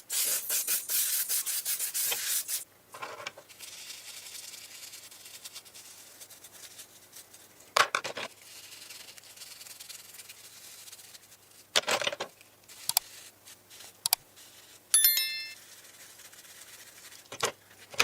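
Rapid back-and-forth rubbing strokes on a surface for the first couple of seconds, then quieter steady rubbing, broken by a few sharp knocks and a brief metallic clink near the end.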